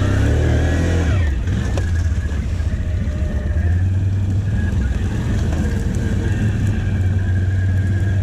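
Can-Am Outlander ATV engine running under way, its revs changing in the first second, then running fairly steady.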